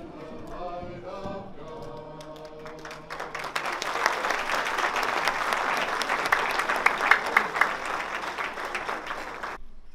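A group of voices sings the close of a song, ending on held notes. An audience then breaks into applause at about three seconds in, which cuts off suddenly just before the end.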